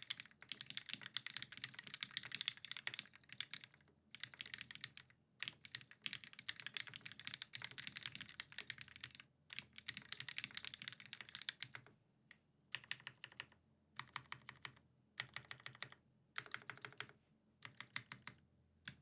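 Mechanical keyboard with lubed vintage Cherry MX Black linear switches, an aluminium plate and GMK keycaps being typed on. Fast, continuous typing for about twelve seconds, then short bursts of a few keystrokes with pauses between them.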